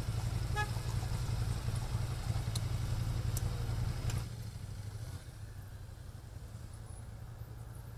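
Motorcycle engine idling steadily in street traffic; about four seconds in it drops away to quieter, even city traffic noise.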